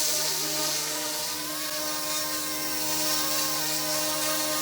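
Small electric RC scale helicopter (YXZNRC F09-S) in flight, its brushless motor and rotors giving a steady whine of several tones that waver slightly in pitch.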